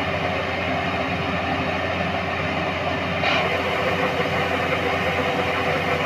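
Yanmar rice combine harvester running steadily, its engine and threshing machinery humming at an even level while it unloads grain through its auger spout.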